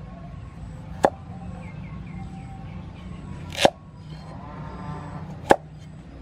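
Cleaver chopping a carrot on a round wooden chopping block: three sharp chops spaced about two seconds apart.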